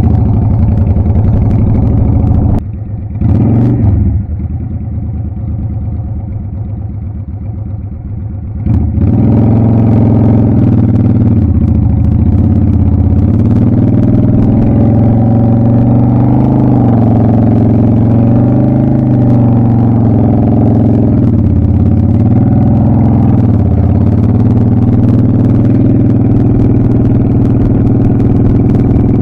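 Motorcycle engine heard from the rider's seat, running at low speed with the revs rising and falling again and again as the bike is ridden slowly through the cones. It is quieter for a few seconds, then louder from about nine seconds in.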